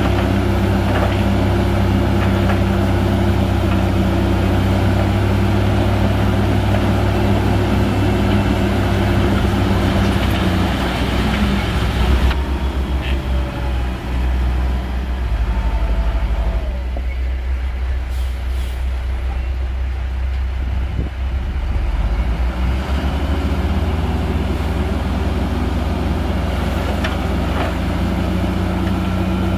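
Heavy diesel engines of earthmoving machinery running steadily. The engine note shifts about twelve seconds in and settles back to a steady note later on.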